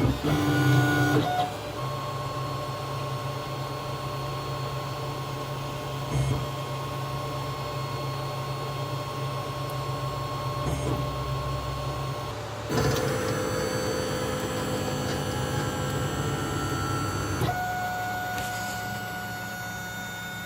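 CubePro 3D printer running a print: its stepper motors whine with steady tones that jump to new pitches a few times as the print head changes moves.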